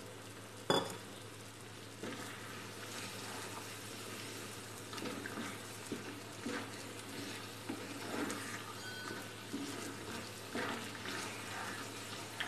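Wooden spatula stirring and scraping thick moong dal halwa around a frying pan in irregular strokes, the mixture sizzling in ghee. A sharp knock comes about a second in.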